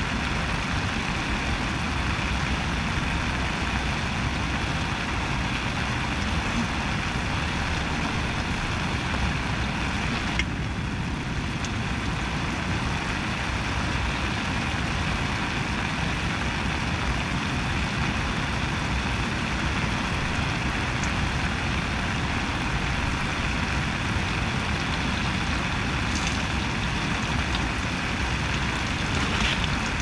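Portable gas camping stove burning steadily under a pot of meat: a continuous, even hiss.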